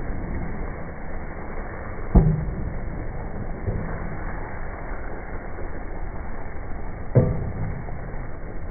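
A pot of chicken curry cooking, heard as a steady low noise, with two sharp knocks about five seconds apart.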